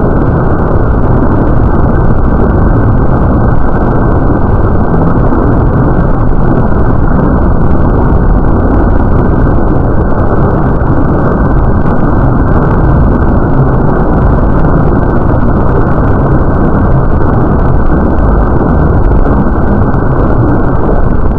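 Loud, steady rumbling noise with no pitch or rhythm, dense in the lows and cut off sharply above the middle range.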